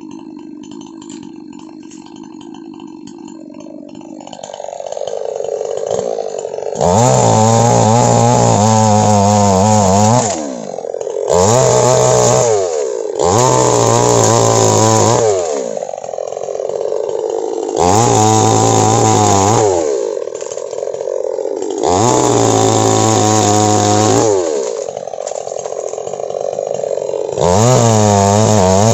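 Two-stroke chainsaw idling, then revved to full throttle about six times for two to three seconds each while cutting oil palm fronds, the engine note falling back to idle between cuts.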